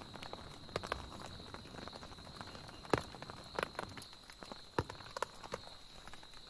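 Rain on a tent: a soft, steady patter broken by irregular louder drops, the loudest about three seconds in and another near five seconds.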